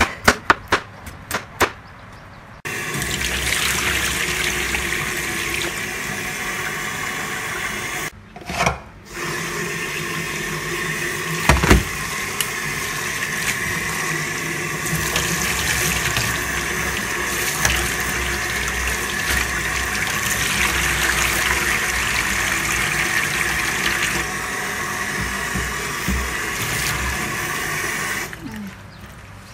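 A few knife strikes on a plastic cutting board while cutting squash, then tap water running steadily into a metal bowl of cut green beans in a stainless steel sink, with a short break about eight seconds in and a single knock near twelve seconds.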